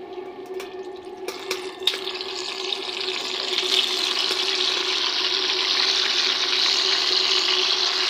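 Chapli kababs sizzling in hot ghee in an iron karahi. After a few sharp clicks about a second and a half in, the frying hiss swells and holds loud and steady as the kababs go back into the fat and it bubbles up around them.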